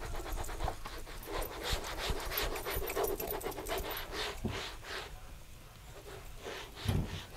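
Cloth rubbed back and forth over a boat's smooth fiberglass deck in a run of quick, rhythmic swishing strokes, with a soft low thump near the end.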